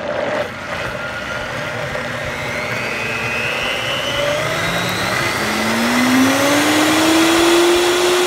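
Vitamix blender motor running at full tilt, blending oil, lemon juice, garlic and egg white into a thick, mayonnaise-like garlic sauce. Its whine climbs steadily in pitch through the second half.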